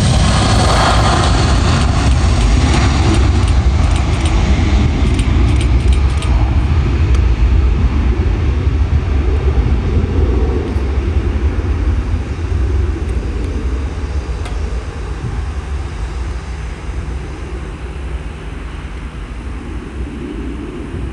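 Airbus A320 jet engines at takeoff thrust: a loud, deep rumble that fades steadily during the second half as the airliner accelerates away down the runway and climbs out.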